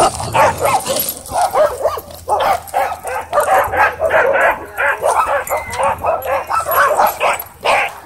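Huskies barking in a rapid, unbroken string of short pitched calls, several a second.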